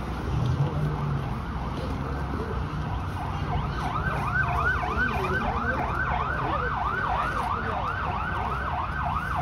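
Emergency vehicle siren starting a few seconds in, on a fast yelp: a tone sweeping up and down about three times a second, over street background noise.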